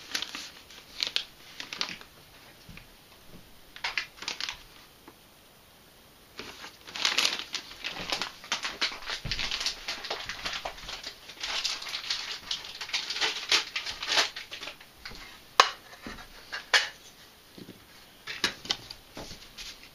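Intermittent rustling and crinkling handling noise, coming and going irregularly, with two sharp clicks about a second apart near three-quarters of the way through.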